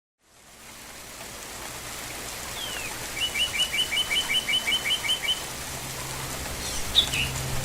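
Steady rain fading in, with a bird singing a quick run of about a dozen repeated chirps in the middle and giving one more short call near the end.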